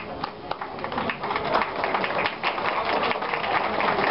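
Audience clapping in a small room: scattered claps at first, thickening into fuller applause about a second and a half in.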